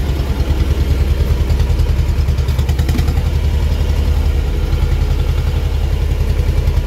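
Old farm tractor's diesel engine running steadily under load, heard from inside the cab, with a regular low pulse, while it drives the front loader's hydraulics lifting manure.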